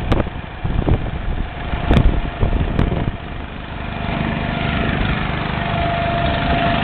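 Heavy truck's diesel engine idling steadily, its even note coming up louder about three and a half seconds in. A few sharp knocks sound in the first three seconds.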